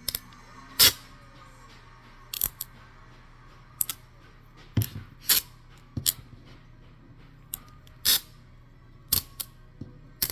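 Scissors snipping at craft paper or tape in short, irregular cuts, with a few longer crinkles of paper.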